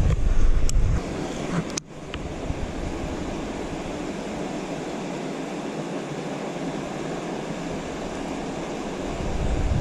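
Steady rushing noise of wind, buffeting the microphone in low rumbles in the first second and again near the end, with a couple of faint clicks early on.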